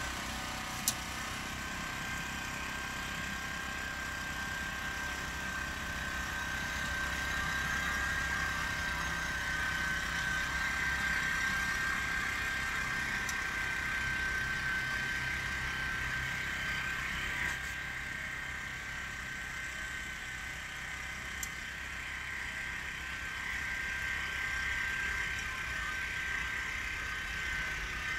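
Small walk-behind farm machine running steadily as it is pushed along a soil bed, with a constant high whine over a low hum. A single sharp click about a second in.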